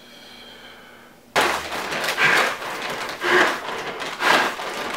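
A man breathing hard and fast into a paper bag, the bag crinkling with each breath, about one breath a second. It is the hyperventilating of a panic attack, and it starts suddenly a little over a second in.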